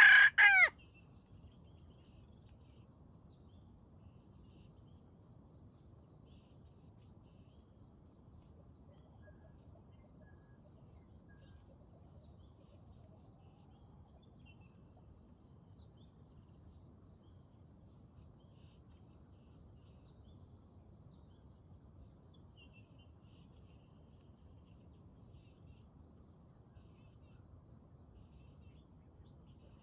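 A rooster's crow ends in the first second, then a faint, steady, evenly pulsing insect trill, like crickets, carries on with low rustling ground noise.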